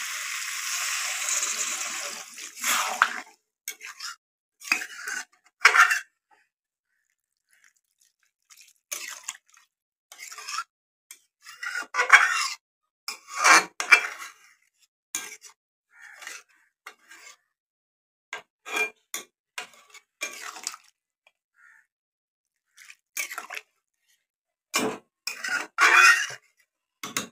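Chicken and potatoes sizzling in oil in a metal kadai for the first few seconds, stopping abruptly. After that a metal spatula scrapes and clinks against the kadai at irregular intervals as the watery curry is stirred.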